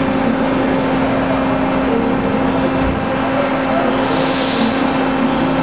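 Hydraulic power unit of a Pines AD 35 CNC tube bender running: a steady, even drone with a constant hum, and a brief hiss about four seconds in.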